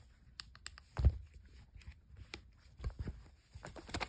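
Handling noise from a plush dancing cactus toy being gripped and moved about: scattered clicks, with a dull thump about a second in and another near three seconds, and quicker clicking near the end.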